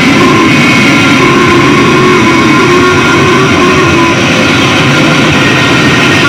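Harsh noise electronics played through an amplifier: a loud, unbroken wall of distorted noise with a few held, shifting whistling tones riding on top.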